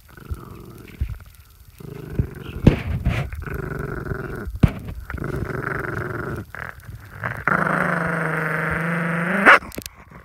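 Miniature fox terrier growling over its bone: a warning growl at someone coming near. Low growls come in bouts with a few sharp clicks, then near the end a longer, louder, steady growl that rises in pitch just before it breaks off.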